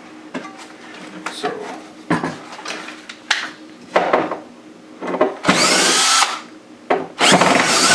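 Power drill running in short bursts: a few brief spins, then two louder runs of under a second each near the end, with a whine that rises as it spins up.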